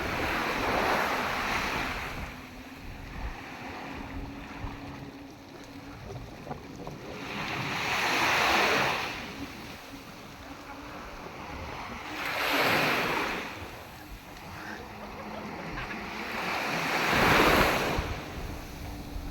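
Sea waves breaking and washing in, four surges that swell and fade several seconds apart, with a faint steady hum underneath.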